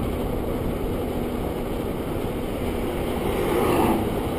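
CVT scooter riding along at road speed, its engine running steadily under heavy wind rush on the microphone.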